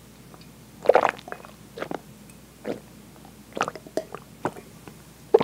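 Close-miked gulping and swallowing as a drink is taken from a glass: a series of short wet gulps roughly a second apart, the loudest about a second in.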